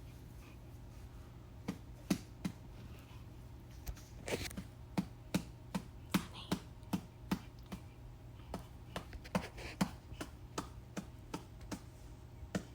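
A hand patting a baby's back to burp it: soft, steady pats about two to three a second, starting about two seconds in.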